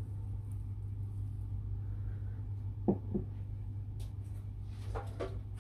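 A steady low hum, with two light knocks a little before three seconds in and soft clatter near the end from a spatula and a glass mixing bowl being handled.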